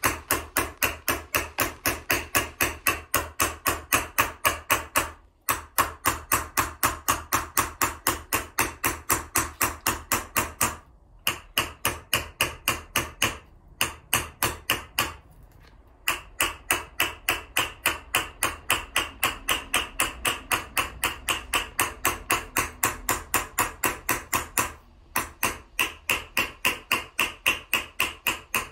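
Huang Embossing Hammer, round-faced, tapping a small metal vessel held on a leather sandbag: quick, even light blows at about four or five a second, with a few short pauses. This is hammer chasing, working a concave trench into the vessel wall between two drawn lines.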